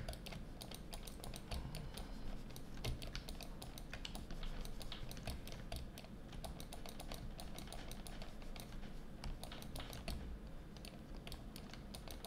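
Rapid, irregular light clicking and tapping at a computer desk, like typing on a keyboard, several clicks a second, thinning out about ten seconds in.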